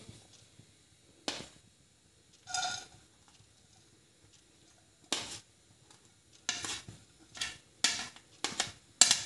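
Spatula scraping chopped cabbage off a plate into a non-stick kadhai, in short separate scrapes and light knocks. The scrapes are two widely spaced at first, then come several a second near the end.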